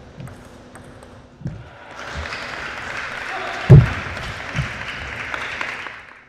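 Table tennis rally: light clicks of the celluloid ball off bats and table, and two heavy thuds of players' feet on the court floor. From about two seconds in, a steady hiss runs under them and cuts off suddenly near the end.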